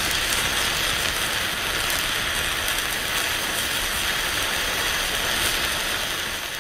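Steady, dense crackling noise, a sound effect for an animated logo intro, fading out near the end.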